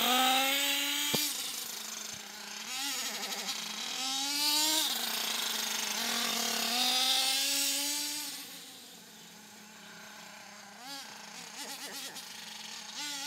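Small nitro engine of an HPI Trophy Truggy, refitted with a Savage XL 4.6 cc engine, revving as the RC truggy drives. Its high whine climbs in pitch on throttle and drops when let off, several times, then grows fainter in the second half as the truck drives away.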